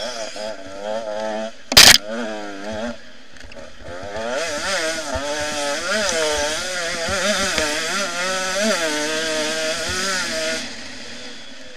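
Enduro motorcycle engine heard from onboard the bike, revving up and down repeatedly as the rider works the throttle over the dirt track. A loud, sharp knock comes about two seconds in, and the engine note drops away near the end.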